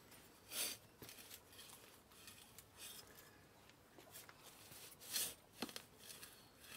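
Faint crunching and scraping of a garden fork's steel tines being pushed into soil and leaf litter: a handful of short scrapes, the loudest about two-thirds of the way through.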